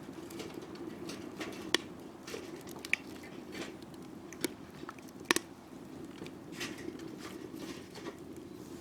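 Wood campfire crackling, a steady low rush with a few sharp pops at irregular moments.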